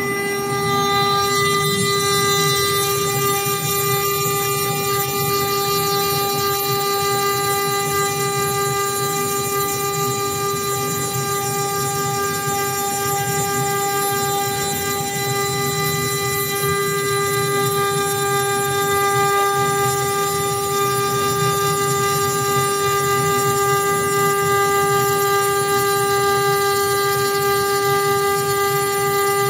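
AccTek AKM1325 CNC router spindle carving a wooden column on its rotary axis: a steady high whine with a rough cutting noise beneath it.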